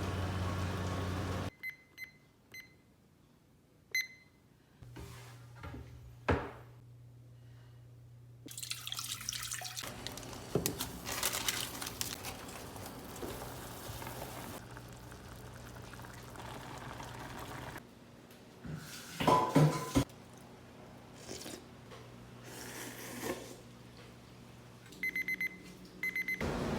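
Household kitchen sounds: a few short electronic beeps, then tap water running for several seconds over a low steady hum, a burst of clatter, and a quick string of beeps near the end.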